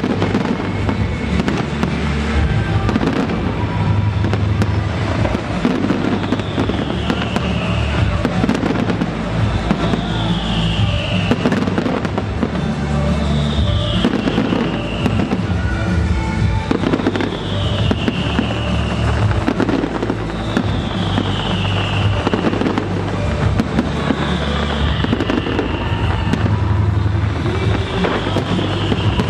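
Loud, dense barrage of aerial firework shells bursting and crackling, one close after another. Music plays under it, with heavy bass and a falling tone that repeats about every three and a half seconds.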